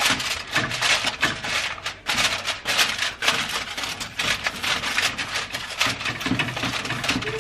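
Aluminium foil crinkling continuously as hands press and fold it down over the rim of a baking dish, a dense, irregular crackle.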